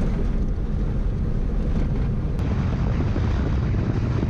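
Steady low rumble of a Nissan vehicle driving on an unpaved gravel road, heard from inside the cabin, with a single click about halfway through.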